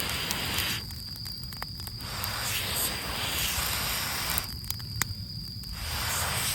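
A person blowing long breaths onto a small, just-catching campfire of rain-wet wood: a hissing rush of air about once every two and a half seconds, three times, with a few crackles from the fire between the breaths.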